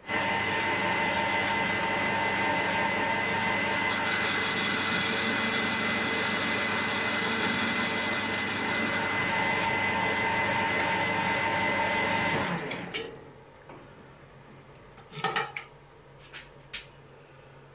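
Metal lathe running steadily while turning the diameter of a cylinder end cap held on an arbor. It is switched off about twelve and a half seconds in and quickly winds down. A few sharp clicks follow.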